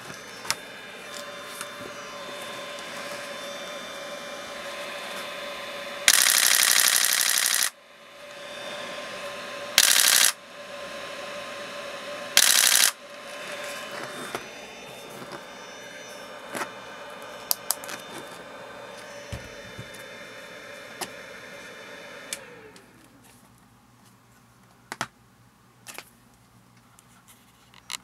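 A DSLR's shutter firing in three rapid continuous bursts, the first about six seconds in and lasting over a second, the other two shorter. Under them a steady motor hum with a whine runs, then winds down in a falling glide about 22 seconds in, leaving a few scattered clicks.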